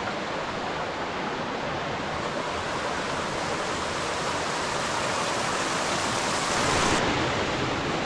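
River water rushing steadily under a small bridge, a continuous hiss of flowing water that grows slightly louder near the end.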